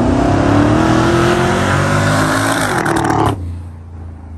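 A car accelerating hard, its engine revving up in a rising pitch, then the sound drops away sharply about three seconds in, leaving a lower engine rumble that fades.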